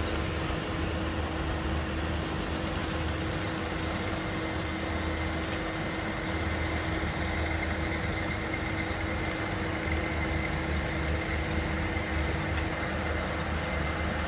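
Heavy construction machinery running steadily at a piling site: diesel engines rumbling, with a constant hum and a faint high whine over them.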